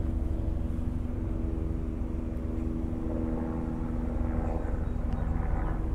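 Small propeller airplane droning steadily at a distance, a low hum holding a couple of even pitches, over low wind rumble on the microphone.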